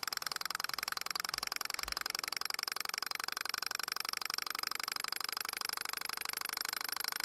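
Small alcohol-fired balance Stirling engine running steadily, a rapid, even mechanical ticking, while driving a small generator.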